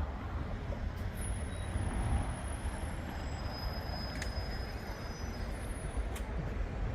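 Steady low rumble of outdoor background noise, with a few faint high thin tones and light clicks over it.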